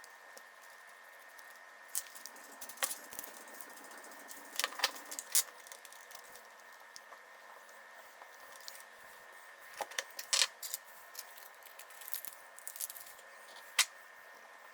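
Scattered light clicks and rattles of small metal parts and a tool being handled while assembling a Traxxas TRX4M's metal axle, in little clusters with pauses between.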